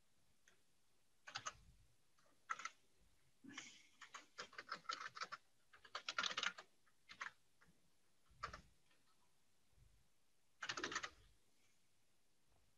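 Computer keyboard typing: faint, irregular keystrokes in short clusters with pauses between them.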